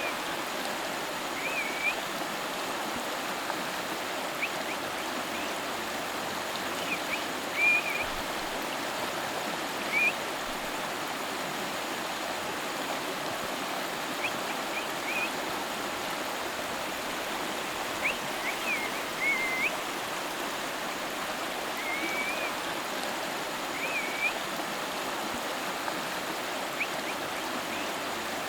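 River water flowing steadily. Over it, a bird gives short high chirps every few seconds.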